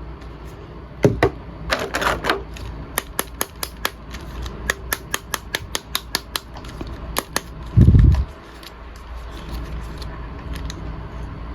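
Many sharp clicks and taps in quick succession, with a single dull thump about eight seconds in: hands handling a plastic action figure and its packaging.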